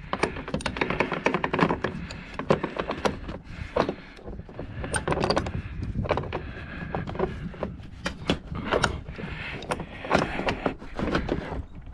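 Irregular clicking, knocking and scraping of hand tools on metal as a brass fitting is worked loose from a dishwasher being scrapped.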